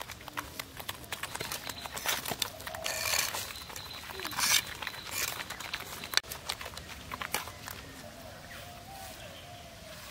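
Live climbing perch flopping and slapping on bare packed earth: irregular dry taps, busiest in the first six seconds or so and thinning out after.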